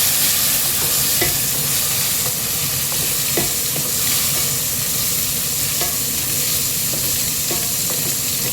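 Onions frying in oil in a pan, sizzling steadily, with a few light taps of a spatula stirring.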